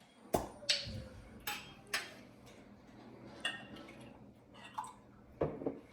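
Small glass jars being handled, giving a handful of short, irregular clicks and light knocks.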